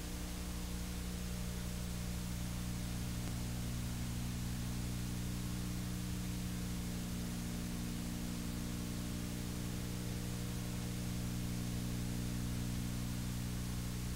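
Steady electrical hum with a stack of buzzy overtones under a constant hiss: the noise floor of an old videotape soundtrack, with no other sound rising above it.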